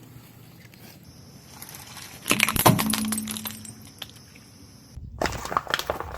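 A brittle, glass-like object cracking and breaking under a car tyre in a short burst of cracks about two and a half seconds in, followed by a brief low ringing tone. After a sudden cut near the end, more crackling clicks follow.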